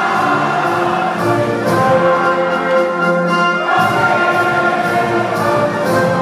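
Orchestral music with choir and brass, playing slow, held chords.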